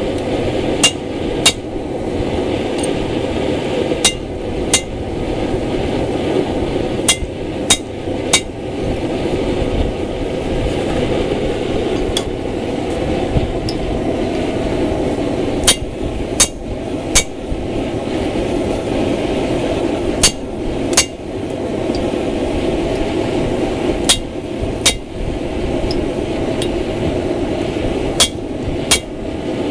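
Hammer striking a steel drift to open the eye of a mild-steel axe head: sharp ringing metallic blows in groups of two or three, about two-thirds of a second apart, every three to four seconds. Under them runs the steady rushing of a propane forge burner.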